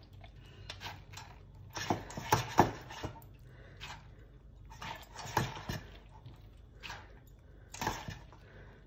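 Handfuls of soaked urad dal scooped up and dropped into a steel container: wet, grainy rustling with a few light, irregular knocks of hand and grains against the steel.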